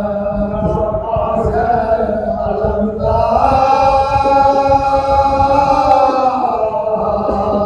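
A group of men chanting an Ashura mourning recitation in unison: a lead reciter with his chorus of accompanying voices. About three seconds in they swell into one long held note that lasts roughly three seconds.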